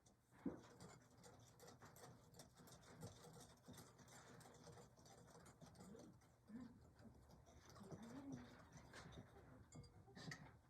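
Quiet wire whisk stirring milk into the dry pudding mix in a glass bowl, with many faint light ticks as the wires touch the glass. Two soft, low cooing notes come in about six and eight seconds in.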